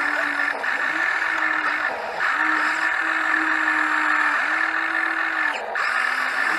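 Engine of working construction machinery running steadily, its hum shifting pitch in small steps a few times, with brief dips about two seconds in and near the end.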